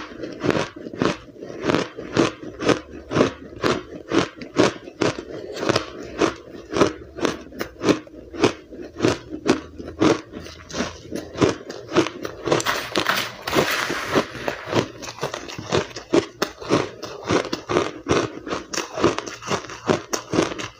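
Mouthfuls of blender-crushed powdery ice being chewed close to the microphone: a steady rhythm of crisp crunches, about two to three a second, with a denser stretch of crackling about two-thirds of the way through.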